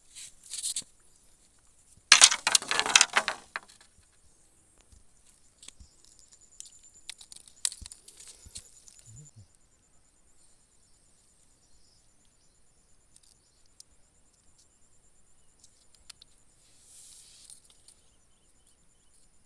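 A loud burst of rustling and crinkling, lasting about a second and a half from about two seconds in, followed by scattered faint clicks and rustles. A faint steady high whine runs underneath.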